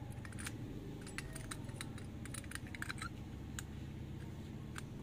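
Light, irregular clicks and taps from handling a projector lamp module, its metal bracket and glass reflector knocking under the fingers, over a low steady hum.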